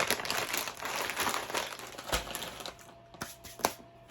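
Crinkly Rap Snacks chip bag rustling and crackling as it is handled, dying down after about two and a half seconds, followed by a few sharp ticks.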